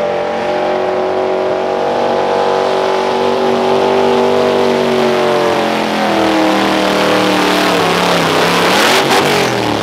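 A '68 Chevrolet pickup's engine runs flat out, pulling a weight sled. Its pitch slowly sags under the growing load. Near the end comes a burst of noise and the revs fall away quickly.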